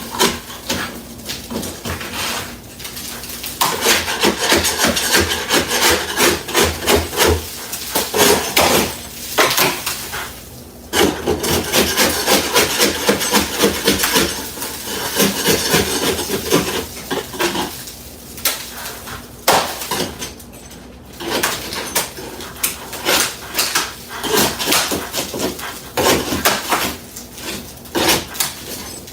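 Hand tool working a ceiling repair with rapid, repeated scraping strokes, in bursts of a few seconds with short pauses between them.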